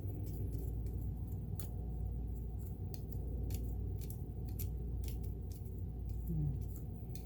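Irregular light clicks and small scrapes of hand-cleaning the metal parts of an Elna Supermatic sewing machine, over a steady low hum.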